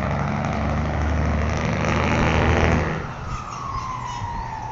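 Mercedes-Benz 1518 truck's turbocharged diesel engine revved hard and held, with a rushing hiss at the top; about three seconds in the throttle is let off and the turbo whistle winds down in one long falling tone.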